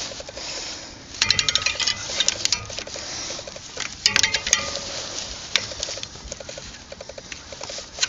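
Pass-through socket ratchet clicking in two quick bursts, about a second in and again around four seconds in, with a flock of migrating geese honking in the background.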